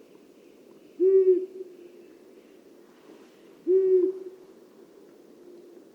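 Long-eared owl giving two low, even hoots about two and a half seconds apart, each short and monotonous, the dull "huh" of the male's breeding-season call.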